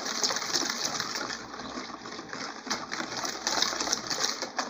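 Wire whisk beating runny chocolate cake batter in a plastic bowl: a rapid, steady stream of wet slapping and ticking as the wires hit the batter and the bowl's sides.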